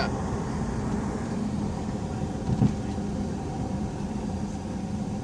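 Steady vehicle engine and road noise heard from inside a moving vehicle, with a low hum, and a short bump about two and a half seconds in.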